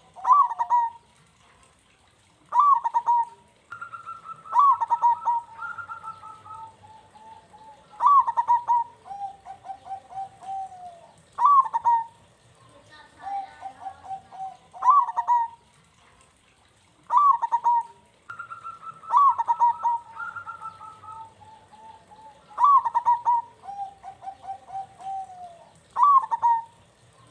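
Zebra dove (perkutut) cooing in repeated phrases about every three seconds. Each phrase opens with a sharp, bright note followed by a run of lower, rolling notes. A second, higher cooing line overlaps twice.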